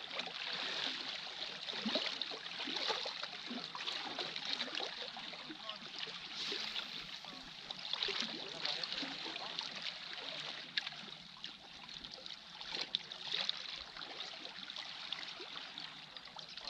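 Small sea waves lapping and trickling among shoreline rocks, a continuous wash with many small irregular splashes.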